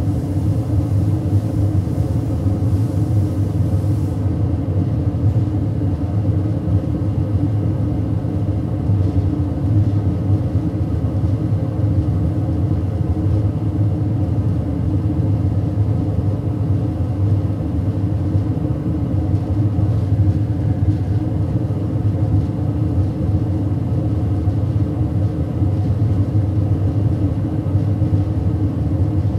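A loud, steady low rumble that does not change. A faint high hiss above it stops about four seconds in.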